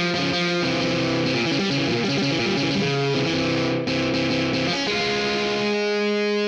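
GarageBand's Hard Rock electric guitar, played on an iPad touchscreen and distorted through the Vintage Drive and Robo Flanger pedal effects. It plays a quick run of single notes in a klezmer scale, then holds one long sustained note from about five seconds in.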